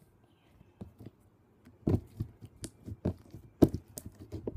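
Homemade glue slime squeezed and pressed by hand: a string of irregular sticky clicks and pops, sparse at first and much busier from about two seconds in.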